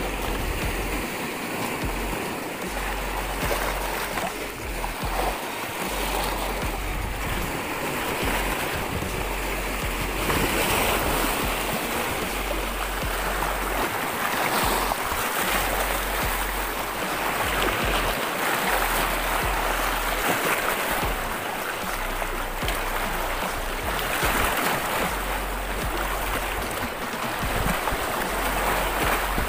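Sea waves washing and churning over a rocky shore, a steady rush of surf, with a low rumble coming and going.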